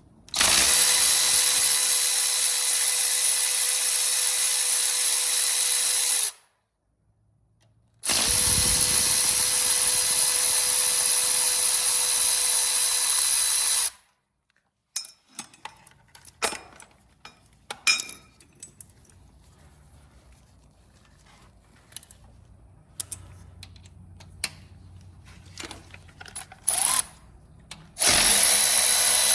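Cordless power tool motor spinning at a steady pitch, driving out the oil pump bolts on a Coyote V8. It runs twice for about six seconds each, then gives way to scattered metallic clicks and taps of bolts and hand tools, and starts up again near the end.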